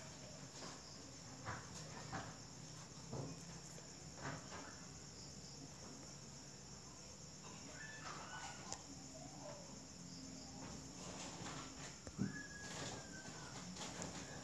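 Faint background sound with a steady high-pitched chirring, a few soft clicks, and a sharper knock about twelve seconds in.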